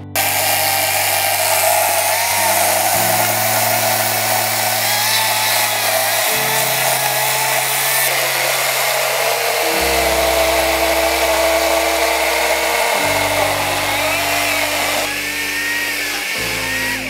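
Makita MUC008G battery-powered chainsaw cutting into a thick log. Its motor and chain give a loud whine that wavers in pitch as the saw labours through the heavy wood. Background music plays underneath.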